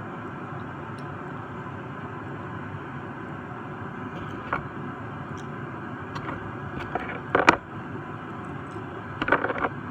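Small sharp clicks and taps from handling a die-cast toy car and its wheels over a steady background hiss. There is a single click about four and a half seconds in, a louder quick cluster around seven seconds, and a few more near the end.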